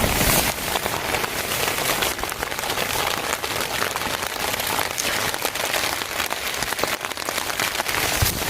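Heavy storm rain beating down: a dense, steady pattering of countless drops.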